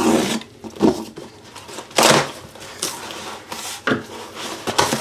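Cardboard packaging boxes being handled and opened: a run of irregular scrapes and rustles, the loudest about two seconds in.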